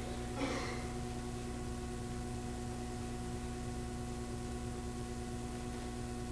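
Steady mains hum and hiss from the recording, with one brief noise about half a second in; no saxophone is heard.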